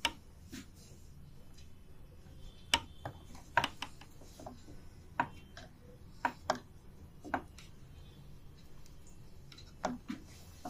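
Light irregular clicks and taps, about a dozen at uneven intervals, from fingers handling and touching a desktop motherboard, over a faint steady low hum.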